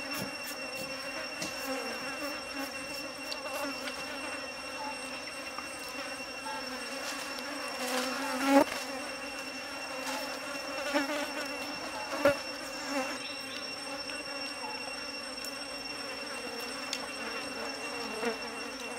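Flying insects buzzing steadily in a low wavering hum, with a few sharp knocks, the loudest about eight and a half and twelve seconds in.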